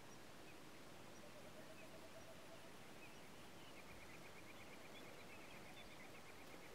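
Near silence, with a faint bird singing: a few high chirps, then a rapid trill of repeated high notes through the second half.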